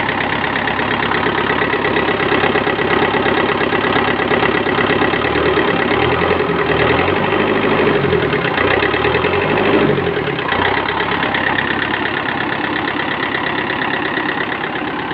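Old farm tractor's engine running steadily at idle, heard close up.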